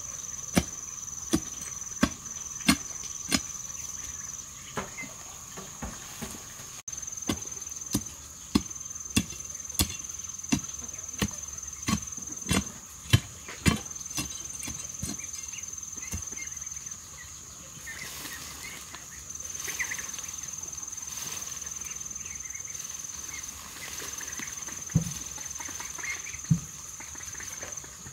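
Hoe blade striking and chopping into packed earth in a steady rhythm, about three strikes every two seconds, thinning out about halfway through into scattered scrapes and two dull thuds near the end. A steady high insect drone runs behind it, breaking off now and then.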